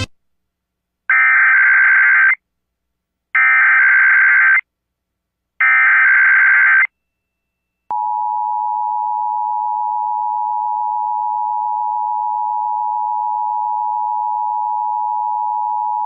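Emergency Alert System Required Weekly Test: three short bursts of SAME header data, each about a second long and evenly spaced, then the steady two-tone EAS attention signal held for about eight seconds.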